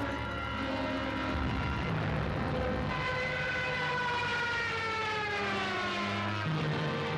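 Documentary soundtrack music of sustained low notes shifting every second or so. From about three seconds in, a long siren-like wail slides slowly down in pitch.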